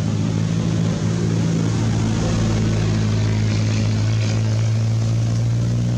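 A motor engine running steadily at one low pitch, with no change in speed.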